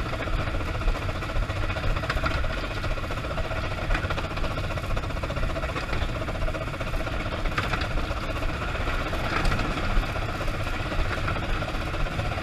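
Footplate noise of the 15-inch gauge steam locomotive Green Goddess running along the line: a steady rumble and rattle of the engine and wheels on the track, with a few sharper clanks.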